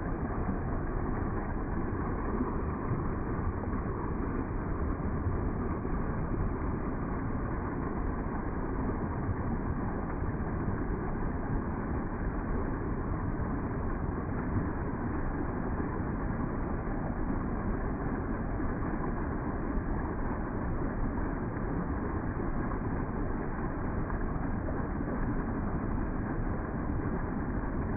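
Water of a small waterfall rushing and splashing over rocks in a steady, unbroken rush.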